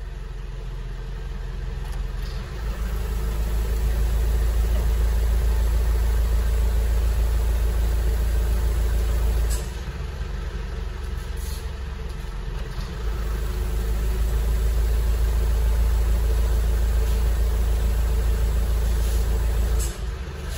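Mitsubishi Fuso Canter truck's diesel engine idling, its note turning deeper and louder twice for about seven seconds each while the revs stay at idle, as the exhaust brake is switched on and off: a test of an exhaust brake that works poorly.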